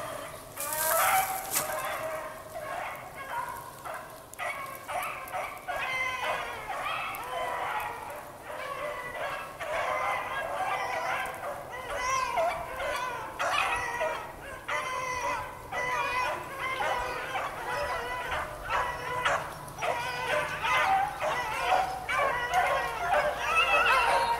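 A pack of beagles baying, many overlapping, wavering voices, as the hounds run a rabbit's scent trail. A brief hiss about a second in.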